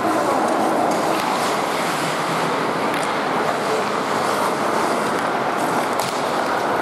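Steady rushing ice-rink noise during play: skate blades scraping the ice under the arena's reverberant hum, with two faint sharp clicks about three and six seconds in.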